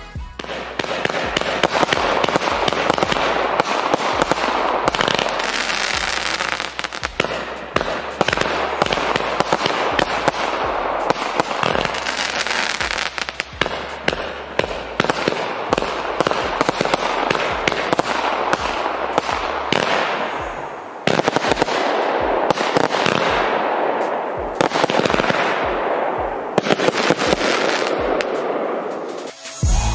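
Nico 'Fireworks Fiesta' 67-shot, 25 mm firework battery firing: a fast, near-continuous run of launches and bursts, with a brief lull about twenty seconds in before the shots pick up again.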